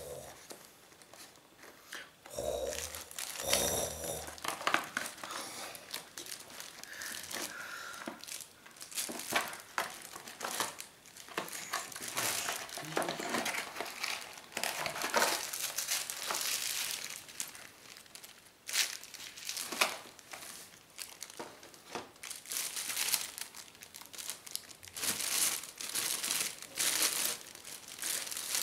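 Clear plastic bag crinkling and rustling in irregular handfuls as hands unwrap a pistol from it.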